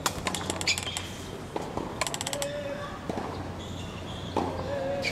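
Tennis racket striking the ball at the start, followed by further sharp ball hits and bounces on the hard court about a second and two seconds in.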